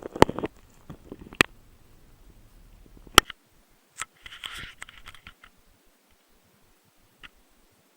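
A few sharp clicks and knocks of small objects being handled, the loudest about a quarter of a second in and about three seconds in, then a brief rustle and one faint tick.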